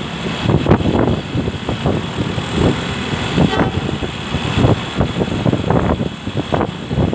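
Road traffic: a vehicle engine running, with rough, uneven rumbling noise and no horn.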